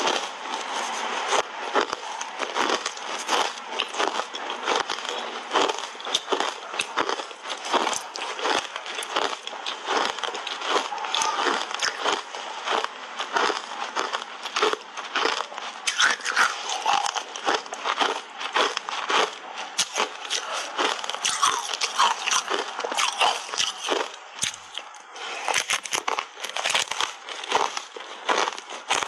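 Hard ice bars made of frozen cola, coated in matcha powder, being bitten and chewed: a dense run of crisp, cracking crunches between the teeth, with only brief pauses.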